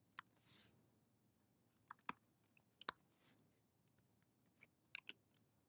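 Faint, scattered keystrokes on a computer keyboard: about ten irregular clicks, some in quick pairs, with two brief soft rushes of noise, one about half a second in and one near the middle.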